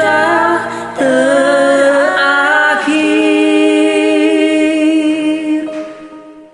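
Solo singing of a pop ballad, a few short phrases and then one long held final note that fades out near the end.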